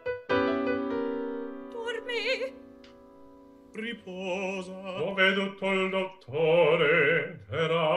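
Opera with piano accompaniment: a held piano chord slowly fades, then singing with a wide vibrato comes in over the piano about halfway through, in short phrases.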